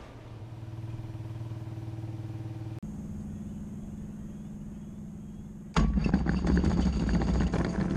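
Quicksilver GT500 ultralight's engine starting suddenly about three-quarters of the way in and running loudly. Before that there is a quieter steady engine hum.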